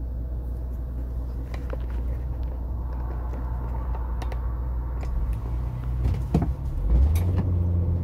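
Car engine and road rumble heard from inside the cabin: a steady low idle, then the engine note rises and grows louder about seven seconds in as the car pulls away from a green light.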